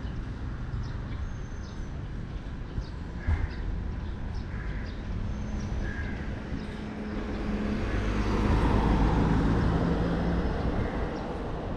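Outdoor traffic ambience: a steady rumble of road traffic, with a vehicle engine growing louder and passing about eight seconds in.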